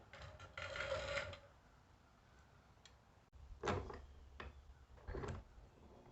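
Small handling noises of workshop work: a rustle lasting about a second at the start, then two short scraping clatters in the second half.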